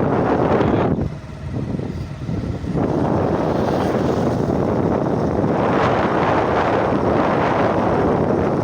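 Wind buffeting the microphone over the steady running noise of a moving vehicle, easing for a couple of seconds about a second in.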